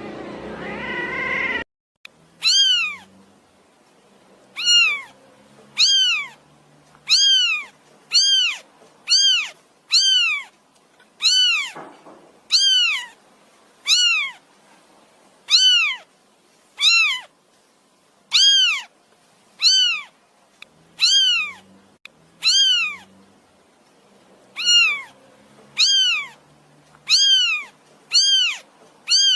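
A cat meowing over and over, about one high-pitched meow a second, each rising then falling in pitch, with short gaps between. The meows are near-identical, as from a repeated sound-effect sample. Before them, a different rising hum cuts off suddenly about two seconds in.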